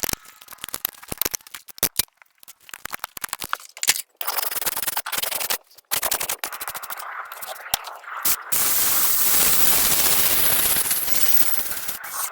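Horse hoof being worked with farrier's tools: rapid clicks and sharp scraping strokes, then a steady loud grinding noise for the last few seconds.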